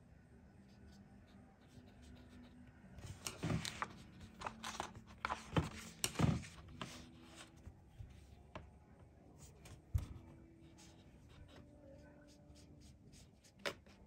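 Watercolour painting sounds: a paintbrush rubbing on paper, with a flurry of light clicks and knocks from about three to seven seconds in, then single knocks near ten seconds and near the end.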